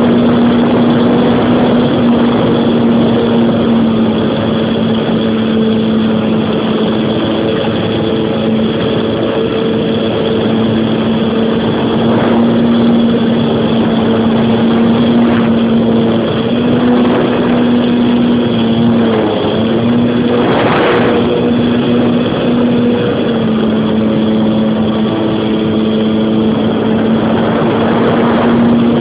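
Electric motor and propeller of a Tiger Stick model plane running in flight, heard from a phone on its nose: a steady whine that dips slightly in pitch twice past the middle, over a rush of air noise.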